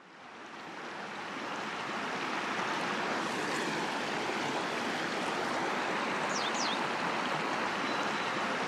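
Steady rushing of flowing river water, fading in over the first two seconds. Two quick, high, falling chirps come about six and a half seconds in.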